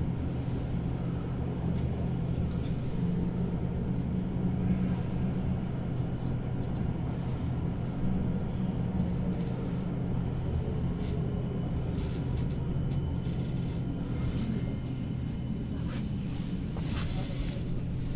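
Saarbahn tram heard from inside the passenger car as it runs: a steady low hum of the drive and rolling wheels, with a few light clicks and rattles.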